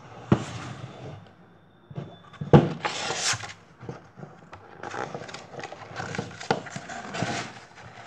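A hardcover picture book being handled, opened and its pages turned: paper rustling and scattered knocks and taps, the sharpest knock about two and a half seconds in, followed by a rustle of pages.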